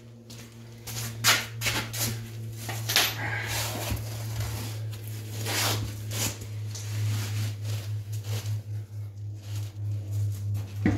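Scattered knocks and clicks of an ATV wheel and mud tire being handled and fitted onto the hub, over a steady low hum.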